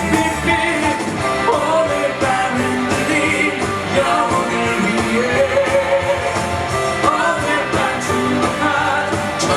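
A musical-theatre encore song sung live with band accompaniment.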